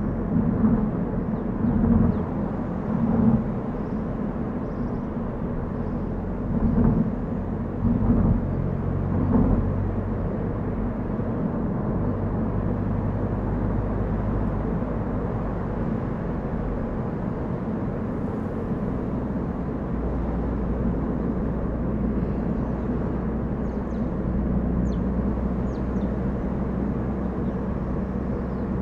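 A car's engine and road noise while driving, a steady low drone whose hum shifts pitch a couple of times. Several louder knocks come in the first ten seconds.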